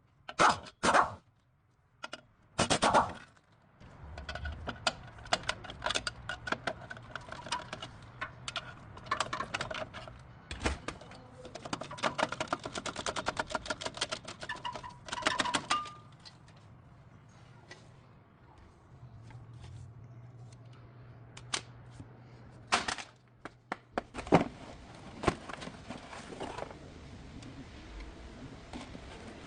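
Hand tools working on a vehicle: long runs of rapid sharp clicks, like a ratchet being worked, with loud single knocks of metal near the start and again about 23 seconds in.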